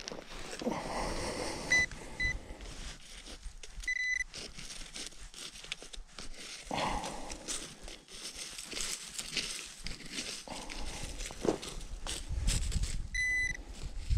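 Short electronic beeps from a metal detector signalling metal in the soil: two brief beeps about two seconds in, another about four seconds in, and a longer one near the end. Between them there is scraping and crackling of dry, crumbly soil and stubble being dug and probed by hand.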